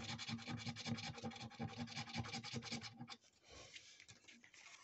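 Rapid back-and-forth scratching of the silver scratch-off coating on a £5 National Lottery scratchcard, stopping about three seconds in.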